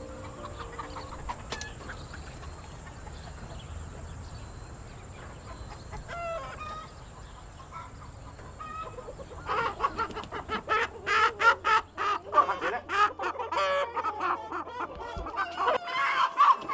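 Several live chickens clucking and squawking, faint at first and then loud and crowded from about halfway in, over a low steady hum.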